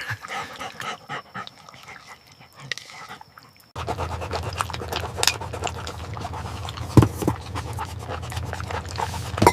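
A puppy panting, with scattered small clicks. A steady low hum comes in abruptly about four seconds in, and there is one sharper click a few seconds later.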